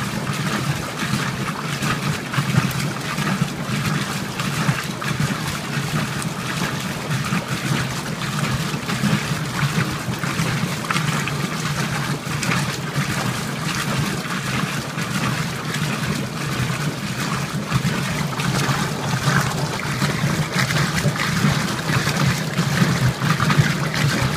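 Old Magic Chef top-load washer agitating: water and clothes sloshing in the tub over a steady low hum from the machine, continuous and even.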